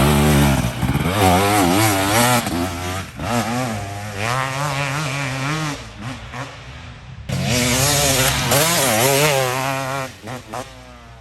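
Dirt bike engine revving up and down repeatedly as the bike rides the track, dropping off briefly past the middle, coming back loud suddenly, then fading away near the end.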